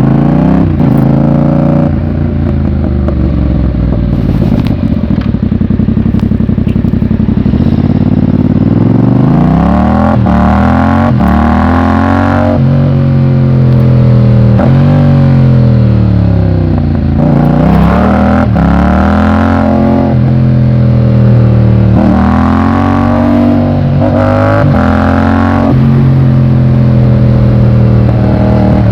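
Yamaha MT-07's parallel-twin engine under way, its pitch climbing and dropping again and again as the bike accelerates and eases off.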